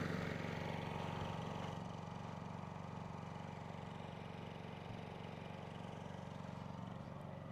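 Generator engine running steadily with an even hum.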